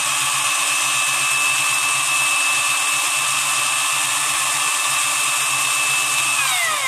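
Cordless screwdriver's motor and gearbox running free with no load at full trigger on 12 V, a steady high whine. Near the end the trigger is released and the whine falls in pitch as it spins down.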